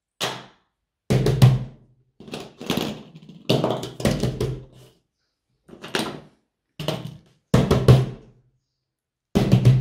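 About ten drum hits in an uneven rhythm, each with a deep bass thump, separated by dead silence.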